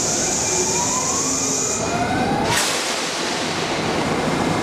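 New York City Subway train rolling slowly into the station with a steady rumble. High, whining tones glide upward in pitch, and a high hiss stops just under two seconds in. A sudden sharp burst comes about halfway through.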